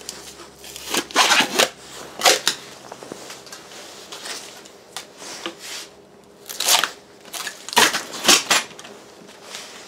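Adhesive tape being peeled off a lithium battery pack's cell block in several short rasping rips, with the plastic case parts being handled.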